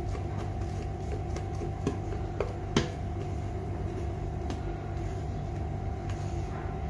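A steady machine hum with a fixed tone, with a few light metal clinks of a stainless-steel mixing bowl against a cake ring as batter is poured from it; the sharpest clink comes about three seconds in.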